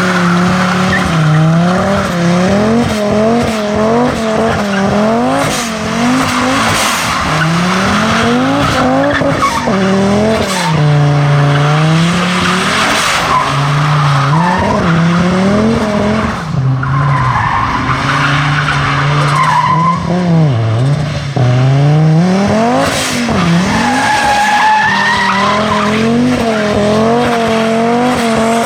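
Rear-wheel-drive Volvo V70 T5 turbocharged engine revved up and down over and over during a burnout or drift, with rear tyres skidding and squealing. A few higher tyre squeals stand out about two-thirds of the way in.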